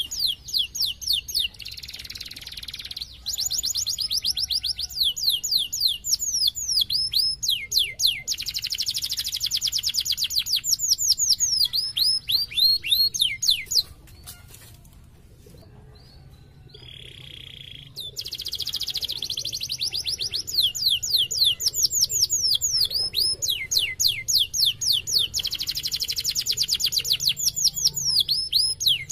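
Domestic canary singing in long rolling trills of rapid, repeated downward-sweeping notes. The song breaks off for a few seconds about halfway through, with one short buzzy note, then starts again.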